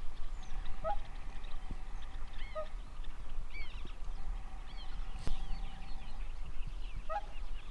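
Birds chirping and calling: short high chirps and lower pips scattered throughout, with a single click about five seconds in.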